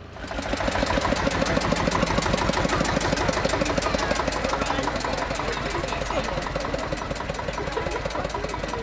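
Old tractor engine running close by with a rapid, even chugging beat.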